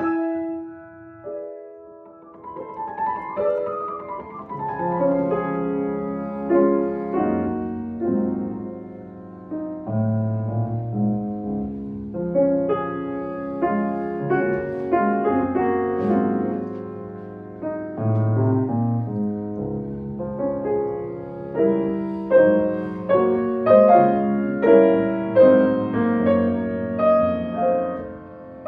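Solo piano playing a slow piece, a melody over held chords. It starts soft and grows louder, with evenly struck notes about once a second near the end.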